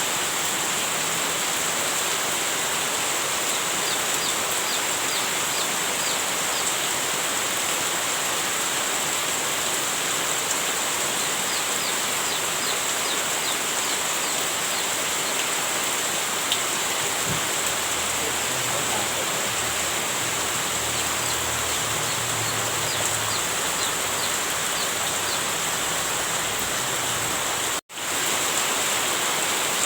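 Heavy rain falling steadily, a dense even hiss. The sound cuts out for a split second near the end.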